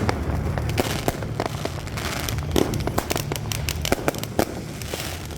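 New Year's Eve fireworks and firecrackers going off all around: many sharp bangs at an irregular, rapid pace over a steady low din of more distant explosions.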